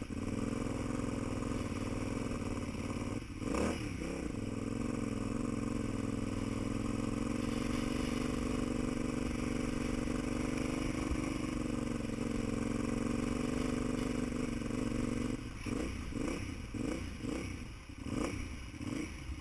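Vehicle engine running steadily while under way, with a brief dip about three and a half seconds in. From about fifteen seconds on it stumbles and surges unevenly: the engine hiccuping and struggling, a recurring fault.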